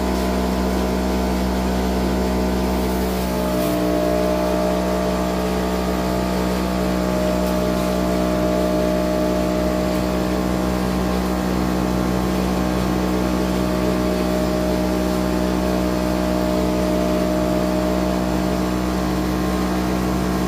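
Homemade cotton candy machine running: its motor spins the heated brass-and-Teflon sugar head with a steady hum while floss is being spun, the hum shifting slightly in pitch about three and a half seconds in.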